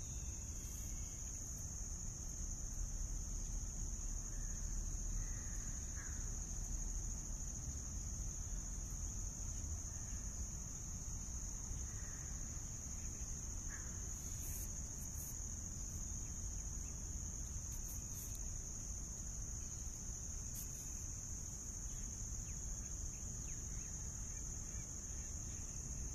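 Steady high-pitched insect chorus, crickets or similar, under a low rumble, with a few faint short chirps in the first half.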